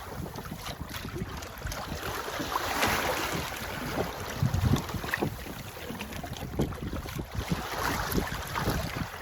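Wind buffeting the microphone in gusts, with water rushing and splashing along a sailboat's hull as it sails.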